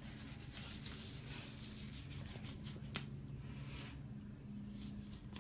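Faint rustling of a sterile glove wrapper and latex gloves being handled, with one sharp click about three seconds in, over a low steady hum.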